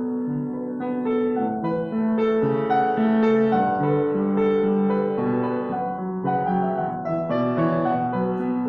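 Solo piano playing an unhurried piece of held chords and melody notes, each note sustained for about half a second to a second.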